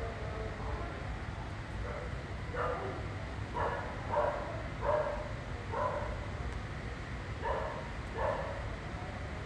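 A dog barking: seven short barks, five in a row and then two more, over a steady low rumble.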